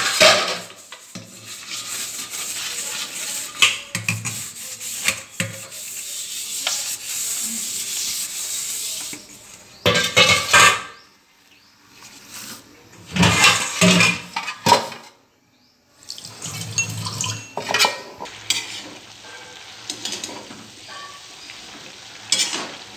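Stainless-steel bowls and a colander being scrubbed with a sponge and clattered in a steel kitchen sink, with loud metal-on-metal clatters about ten seconds in and again a few seconds later. Near the end, a metal spatula stirs and clinks in a steel wok of cooking broccoli.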